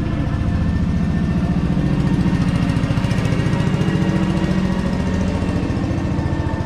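A small engine running steadily close by, with a fast, even low pulse that does not change.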